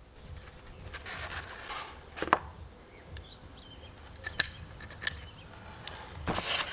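Hands-on work sounds: rubbing and scraping of parts being handled, with a few sharp clicks and taps.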